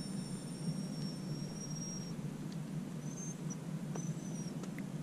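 Quiet outdoor ambience on calm water: a steady low rumble with a few thin, high-pitched whistles, one long at first and short ones later, and a couple of faint ticks.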